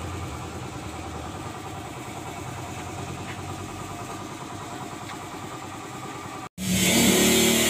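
A motor running steadily with an even, rhythmic throb. About six and a half seconds in it cuts off abruptly and a louder hissing sound with a hum takes over.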